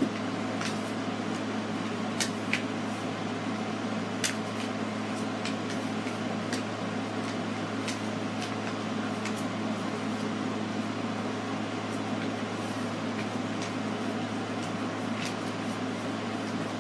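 A sheet of paper being folded and creased by hand, giving scattered light crinkles and taps, over a steady low hum.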